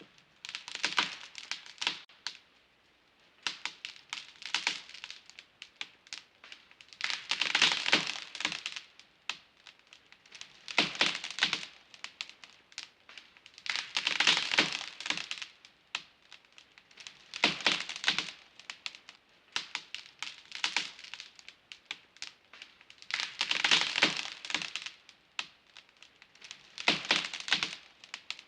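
Wood cracking and splintering in short bursts of rapid snaps, each lasting one to two seconds and recurring about every three seconds.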